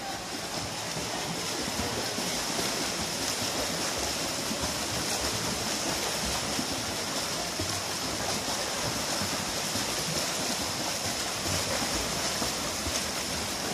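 Water splashing and churning steadily as swimmers sprint freestyle, kicking and stroking hard.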